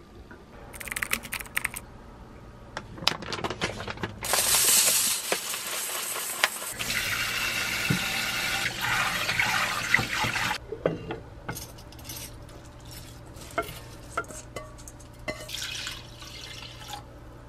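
Rice being washed in a stainless steel bowl at the kitchen sink: metal clinks and rice being stirred, then a tap runs into the bowl for about six seconds. More clinks and stirring follow, and near the end water is poured onto the rice in a pot.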